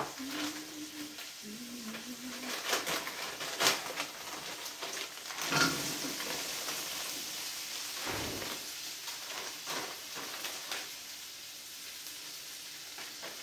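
Bacon and diced potatoes sizzling in a stainless steel frying pan, a steady frying hiss, with a few sharp knocks and clatters as the potatoes are poured into the hot pan around the middle.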